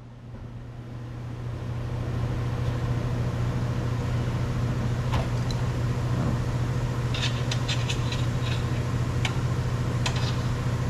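A steady low engine hum, like an idling vehicle, fading in over the first couple of seconds and then holding. Over it come a few light clicks and scrapes, clustered in the second half, from a flathead screwdriver prying the door glass's ball clip free.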